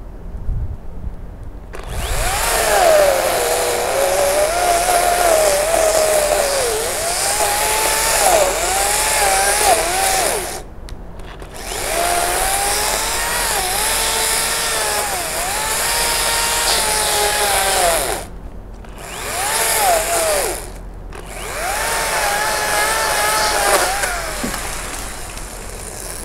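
Makita top-handle battery chainsaw cutting into a persimmon trunk in four runs. Its motor whine sags in pitch and recovers as the chain bites into the wood. It starts about two seconds in, with three short pauses.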